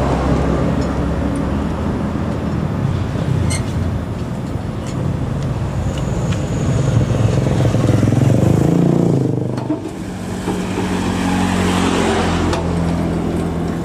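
A motor vehicle engine running with a steady hum. It grows louder for a few seconds past the middle, then drops back to a steady hum near the end.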